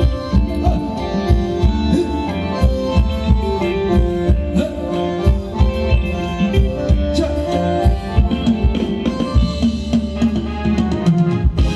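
Amplified live band playing Thai ramwong dance music: melodic instrument lines over a steady drum beat. The bass and beat drop out for a moment near the end.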